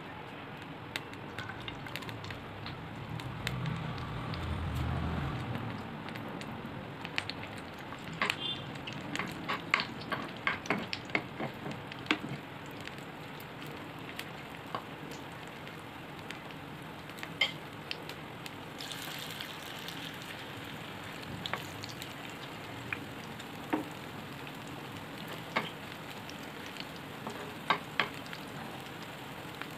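Shredded-potato hash brown batter frying in hot oil in a pan, a steady sizzle. Sharp clicks of a metal spoon against the pan come over it, thickest in the middle as the patties are spooned in and pressed flat.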